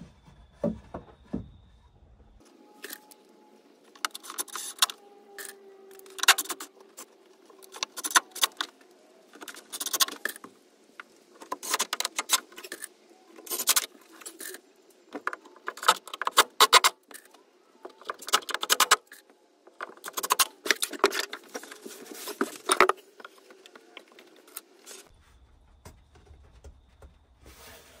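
Irregular clattering and rattling of wooden frame pieces and metal hardware being handled and fitted, in short bursts with pauses between.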